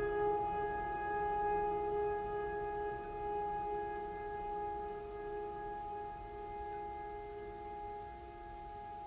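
Background music: a sustained held chord of several steady tones, slowly fading.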